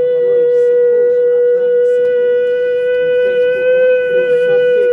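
A shofar blown in one long, steady held note.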